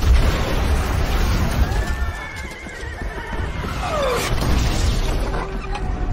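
Film battle soundtrack: a loud blast at the start with a low rumble running on under it, and horses whinnying in panic, one high cry falling in pitch about four seconds in.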